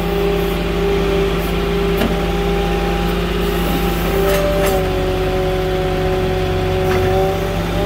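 Moffett truck-mounted forklift engine running steadily as the machine moves, with a steady droning tone over it that shifts slightly in pitch about halfway through, and a couple of light clicks.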